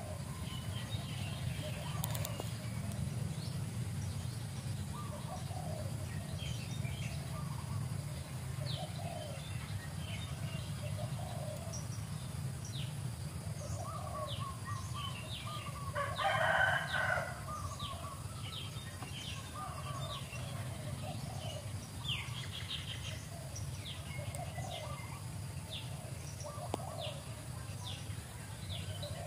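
Birds calling: many short chirps and clucking calls, with one louder call lasting about a second near the middle, over a steady low hum.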